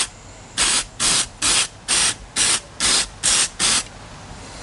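Aerosol can of CRC mass airflow sensor cleaner sprayed in about eight short squirts, roughly two a second, cleaning a mass airflow sensor.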